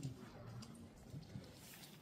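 Quiet street ambience: a faint murmur of distant voices with a few soft footsteps on wet pavement.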